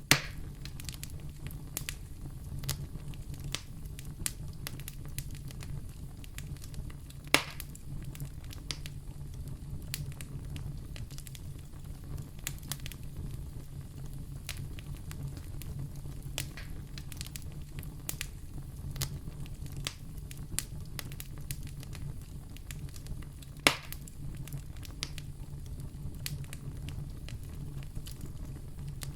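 Wood fire burning in a fireplace: a steady low rumble of flames with frequent small crackles, and three louder pops, one at the very start, one about seven seconds in and one about three-quarters of the way through.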